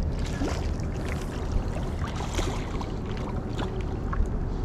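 A hooked common carp splashing and thrashing at the surface as it is played toward the landing net, with short scattered splashes over a steady low wind rumble on the microphone.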